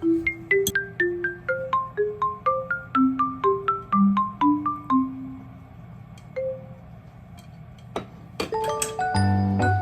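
Background music: a light melody of struck mallet notes, like a marimba, about two or three notes a second, thinning out after about six seconds, then fuller chords with a low bass come in near the end.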